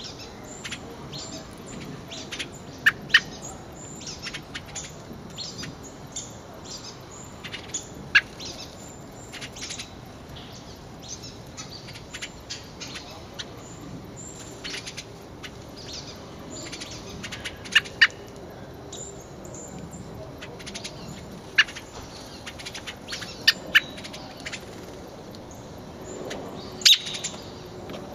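Short, sharp bird chirps scattered irregularly, about ten clear ones plus fainter ones, over a steady low outdoor background noise.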